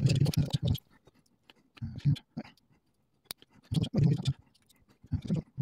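Clicking and scraping of small metal lock parts being handled, in four short bursts of a fraction of a second each, with quiet gaps between.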